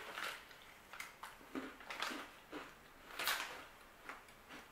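A cookie being bitten and chewed: a few quiet, irregular crunches.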